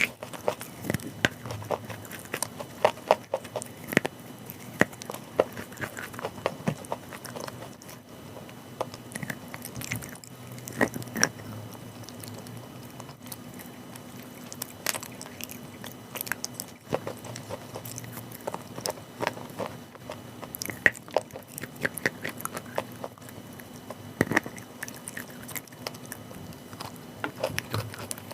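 Close-up chewing and biting of chalk: irregular crunches and clicks, with a faint steady hum underneath.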